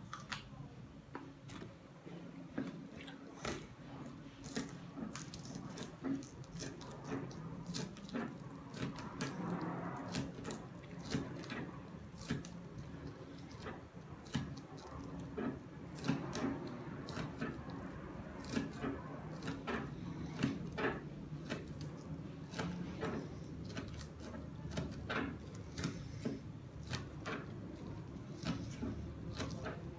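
Kitchen knife working on a fish: irregular clicks, taps and scrapes of the blade, several a second at times, over a steady low hum.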